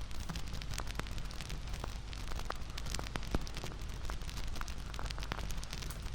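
Crackling wood fire: a steady low rumble and hiss with irregular sharp pops and snaps scattered throughout.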